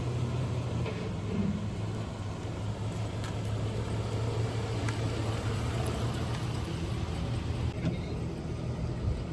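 Pickup truck engine running steadily at a low, even pitch, with a few faint clicks over it.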